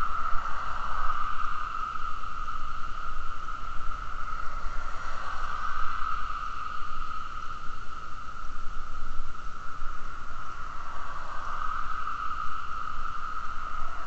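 Steady riding noise from a bicycle: tyres hissing on a tarmac cycle path and wind on the camera, with a constant hum. Road traffic swells past three times.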